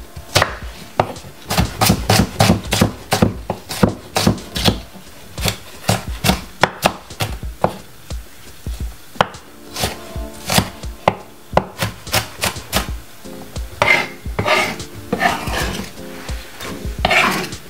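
Kitchen utensils knocking and clicking in quick, irregular strikes during food preparation, with faint background music underneath.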